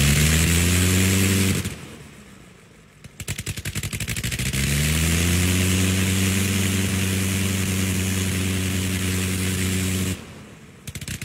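Gnome Monosoupape nine-cylinder rotary engine running with its propeller. It speeds up and runs steadily, cuts out sharply about two seconds in, then catches again with separate firing pops. It climbs back to a steady high-speed run and cuts out again near the end, leaving a few scattered pops.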